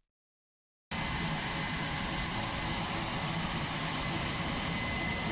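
Jet engines of F/A-18 Super Hornets running on an aircraft carrier's flight deck: a steady rushing noise with a high, steady whine, starting about a second in.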